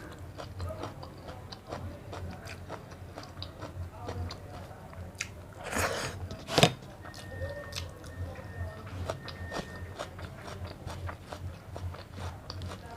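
A person chewing and eating close to the microphone: a meal of rice and egg curry, with soft wet mouth sounds and small clicks. About six seconds in there is a louder rustle ending in one sharp knock.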